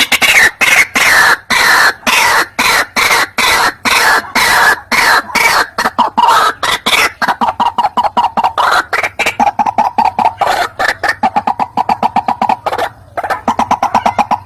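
White-breasted waterhen calling: a loud, fast run of harsh repeated notes, about four a second, broken by a short pause near the end.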